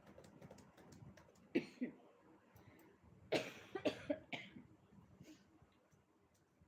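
A woman's coughs, made as mock hiccups: a quick pair about a second and a half in, then a louder run of about four short coughs between three and a half and four and a half seconds.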